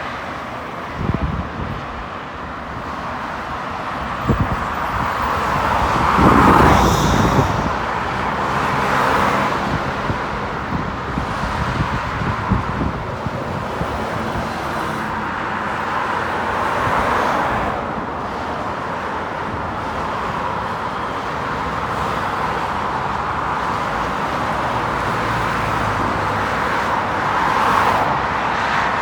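Road traffic: a steady hum of vehicles with several cars passing by, the loudest about six to seven seconds in.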